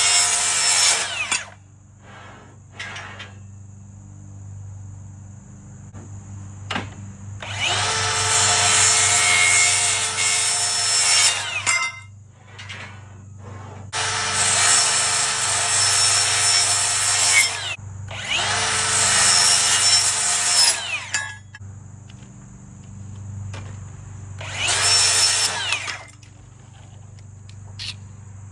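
Circular saw cutting Trex railing pieces: about five cuts of a few seconds each, the motor's whine spinning up and winding down around each one, with quieter pauses in between.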